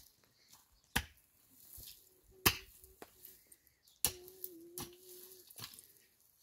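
Digging tool striking dry, stony soil five times, roughly a second or a second and a half apart, the second strike the loudest. A faint held tone sounds twice in the middle.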